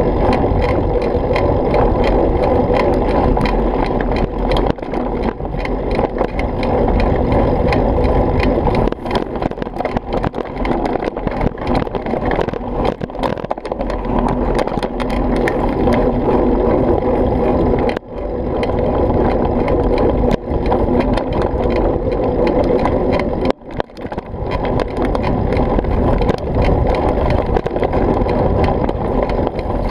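Mountain bike ridden fast down a rough dirt trail: a steady rumble of tyres and wind on the camera microphone, with frequent clicks and rattles as the bike goes over rocks.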